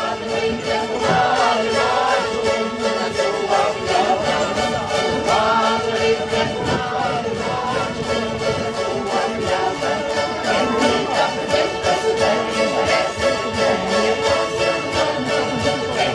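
A cavaquinho ensemble strumming a lively Portuguese folk tune in a steady, even rhythm, with voices singing the melody over it.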